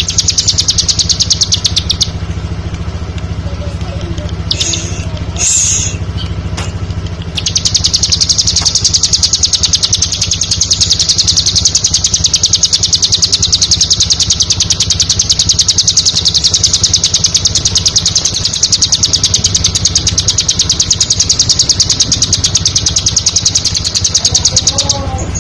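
Bar-winged prinia (ciblek) singing a very rapid trill of sharp, high chips. There is a short run at the start, a brief phrase about five seconds in, then a long unbroken run from about seven seconds in until just before the end. A steady low hum runs underneath.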